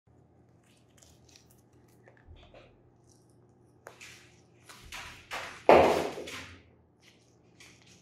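African grey parrot biting and chewing corn kernels off a slice of corn cob: small beak clicks and crunches at first, then a run of louder crunching and rustling, the loudest a sharp burst a little past the middle.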